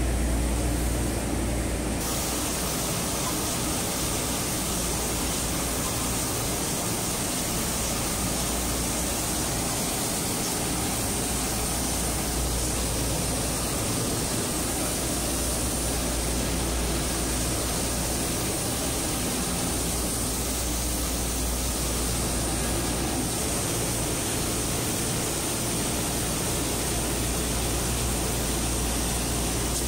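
Jonsen SGP1000 wide-belt sanding and deburring machine running steadily: an even, loud hiss over a low hum, growing brighter about two seconds in.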